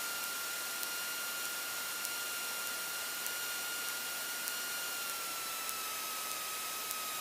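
Steady hiss with a thin, high whine on the cockpit intercom audio of a taxiing light airplane. The whine dips slightly in pitch about five seconds in.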